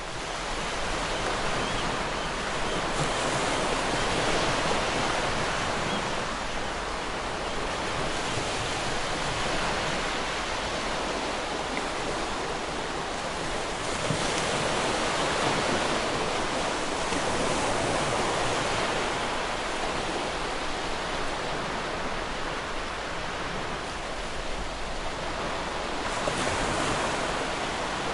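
Ocean waves breaking and washing up on a shore, a steady surf that swells and eases every few seconds.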